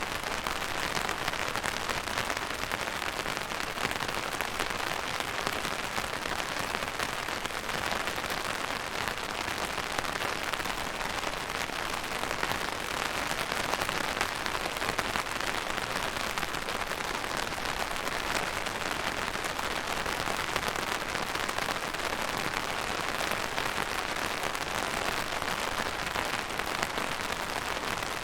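Steady rain falling on a surface, a dense even patter of many drops.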